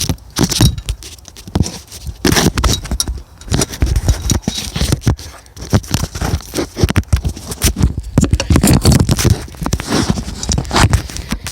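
Hand tools, bolts and the alternator knocking and scraping against its metal mounting bracket as the alternator is worked into place: an irregular run of clicks, clunks and scrapes.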